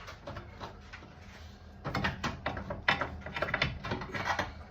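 Irregular sharp clicks and knocks of tools and metal parts being handled while a front lower wishbone is fitted, starting about two seconds in after a quieter stretch.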